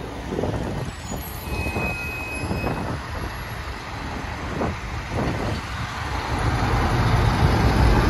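Diesel engine of a long-hood conventional semi truck pulling a loaded flatbed, growing louder and deeper as the truck drives up close.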